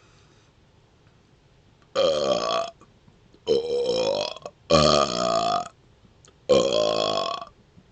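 A man's deliberate burps, made by swallowing air and belching it back up: four long, loud burps, each under a second and starting low then rising in pitch, the middle two almost back to back, with short quiet gaps between them.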